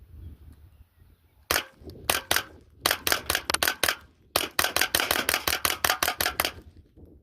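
A .22 Long Rifle AR-style rifle firing rapid shots, about twenty-five in all: a few single shots, then two fast strings of several shots a second with a short pause between them, emptying the magazine.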